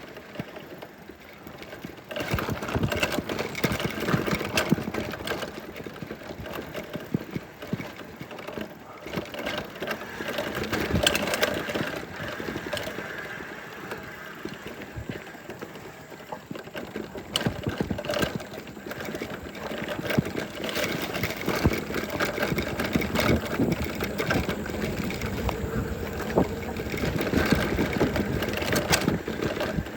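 A mountain bike's loose stock kickstand rattling while the bike is ridden: a continuous clatter of quick, irregular knocks, the 'klotok-klotok' clunking of a kickstand that has worked loose.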